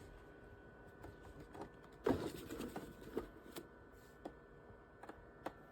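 A few light knocks and clicks of something being handled, the loudest cluster about two seconds in, with scattered single clicks after, over a faint steady hum.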